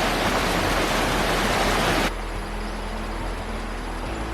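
Rushing river water, a steady loud hiss, which cuts off abruptly about two seconds in, giving way to a quieter background with a faint steady hum.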